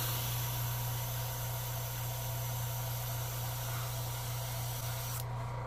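Airbrush spraying paint: a steady hiss of air that cuts off about five seconds in, over a steady low hum.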